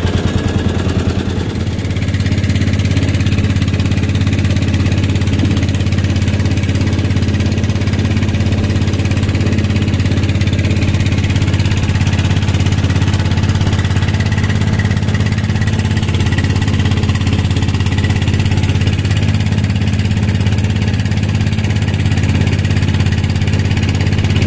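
Small fishing boat's engine running steadily under way, picking up to an even, constant pitch about two seconds in.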